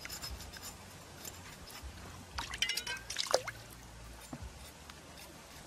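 Water dripping and splashing as hands work a plucked duck carcass with a knife in shallow stream water. A short louder spell of splashing comes about halfway through.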